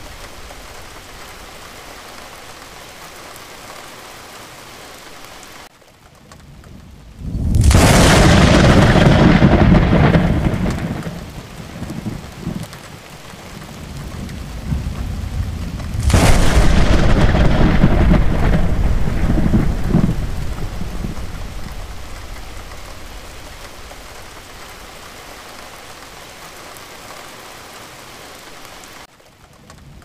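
Steady rain, which drops away briefly before a loud thunderclap about seven seconds in that rumbles on for several seconds. A second loud crack of thunder around the middle rolls away slowly into the steady rain again.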